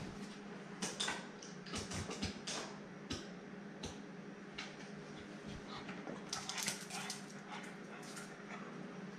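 A pug's faint small noises, with light clicks from its claws on the hard floor as it trots back across the tiles, the clicks bunching a couple of seconds before the end.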